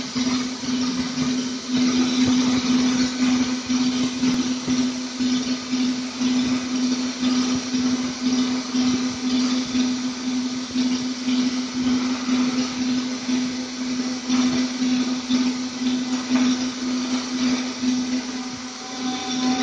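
DIY CNC router spindle at 14,000 rpm cutting aluminium with a 2 mm single-flute end mill: a steady low hum from the cutter's single flute striking the metal about 233 times a second, under a harsh, fluctuating cutting noise. The sound dips briefly near the end.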